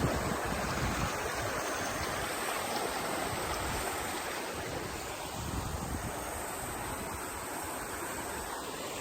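A shallow river or stream flowing steadily over its stony bed, with wind now and then rumbling on the microphone.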